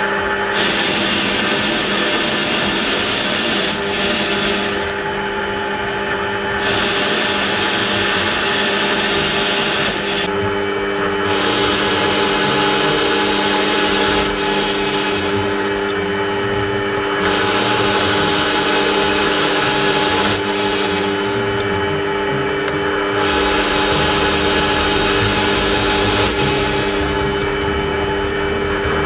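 Small benchtop metal lathe running steadily, its motor and gearing giving a constant whine while the cutting tool turns a metal workpiece. Over the whine sits a cutting hiss that breaks off briefly five times, about every five to six seconds.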